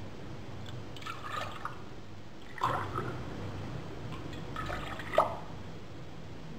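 Water poured from a drinking glass into a stainless steel saucepan of sugar and lemon slices for sugar syrup, in three short pours, the last one louder and ending sharply.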